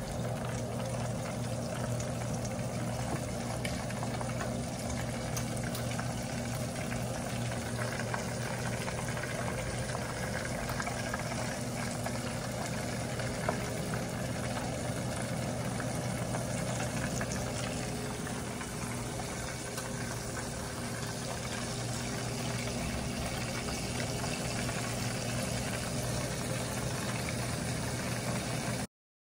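Squid rings deep-frying in a saucepan of hot oil: a steady sizzle with a low hum under it, cutting off suddenly near the end.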